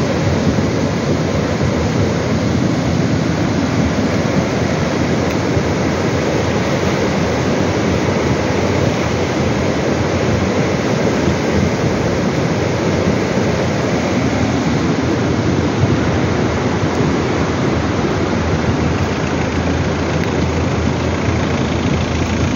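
Muddy floodwater in a swollen stream rushing past, a loud, steady roar with a deep rumble of stones rolling along the streambed, a rumble that can be mistaken for thunder.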